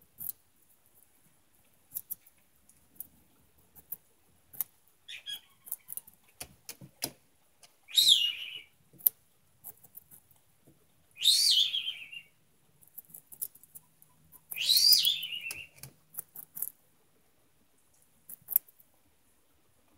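Pet parrot squawking to get attention: three loud calls, each dropping steeply in pitch, about three seconds apart, with a fainter one before them. Between the calls come small sharp clicks of a guinea pig crunching a piece of carrot.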